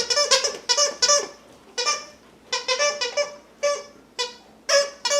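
A puppy chomping on a squeaky dog toy, setting off a quick series of short, high squeaks in bunches, about a dozen in all.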